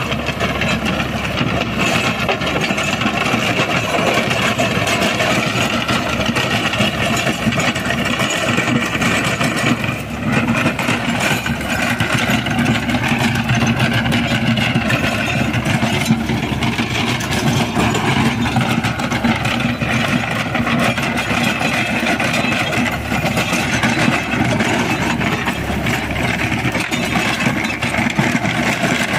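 Mahindra Sarpanch tractor's diesel engine running steadily under load while it drives a Shaktiman rotavator through dry soil.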